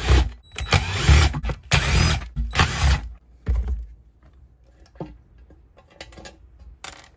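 Cordless screwdriver motor running in several short bursts as it backs out the screws holding a Briggs & Stratton carburetor to its fuel tank, then light clicks of small metal parts being handled.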